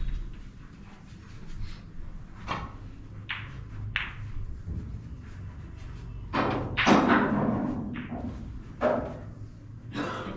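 Snooker play: a string of separate knocks and clicks as the cue strikes the cue ball, the balls collide and thud against the cushions, the loudest cluster about two-thirds of the way through.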